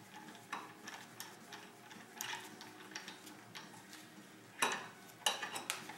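Light, irregular metal clicks and ticks from hand tools working at the top of a motorcycle fork leg, with a couple of sharper metal knocks near the end.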